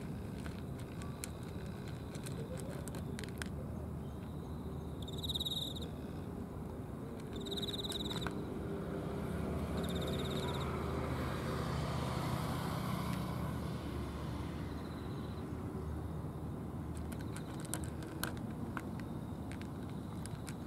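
Cats eating dry food from plastic trays, with scattered small crunching clicks, over a steady low hum of traffic. A vehicle passes midway, and three short high chirps sound in the first half.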